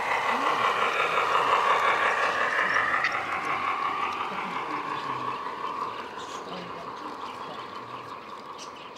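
Garden-scale model train's wagons rolling past on the track with a steady rattling hum, fading as the train moves away.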